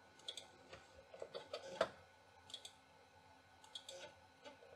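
Faint, irregular clicks and ticks from a Macintosh Classic and its mouse as a floppy-disk copy of MacPaint gets under way, the clicks bunched in the first two seconds with a few more near the end.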